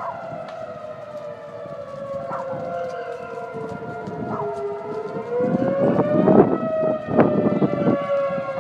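Outdoor warning siren sounding a steady wail for a tornado warning, several tones at once. The pitch sags slowly, rises again about five to six seconds in, then eases back down, and the siren grows louder around five to seven seconds in.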